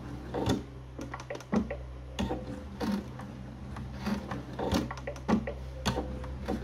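Domestic sewing machine stitching slowly through cork fabric: a steady motor hum with a sharp knock at each stitch, slow and a little uneven.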